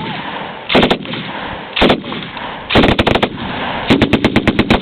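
Machine gun fired in short bursts of automatic fire at a target. A couple of brief bursts are followed by a longer one near the end, at about ten rounds a second.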